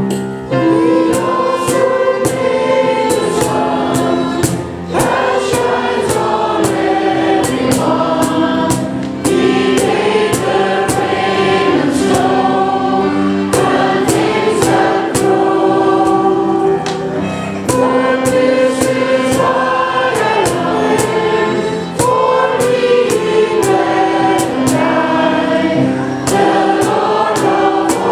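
Congregational hymn singing led by a church praise band: many voices singing together over the band's accompaniment, with a steady beat of sharp percussion hits.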